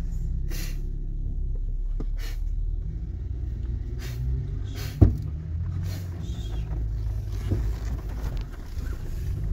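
Off-road vehicle engine running with a low, steady rumble while crawling up a rocky trail climb. Scattered clicks, and one sharp knock about five seconds in.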